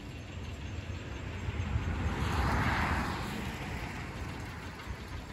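A vehicle driving past on the road: a rushing tyre and engine noise swells to a peak about two and a half seconds in, then fades away.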